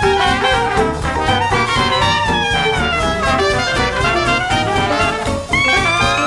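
Background jazz music led by brass, with a run of notes sliding downward a couple of seconds in and a new held chord coming in about five and a half seconds in.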